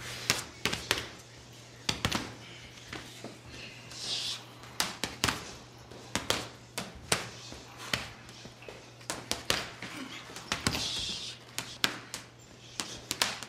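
Irregular sharp taps and knocks, sometimes several in a second, over a steady low hum, with two brief hissy swishes about four and eleven seconds in.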